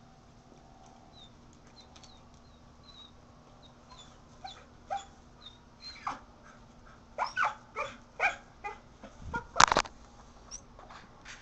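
A kelpie-mix dog whimpering and yipping in short, high calls, faint at first and then coming thick and fast in the second half, with one louder, fuller sound near the end.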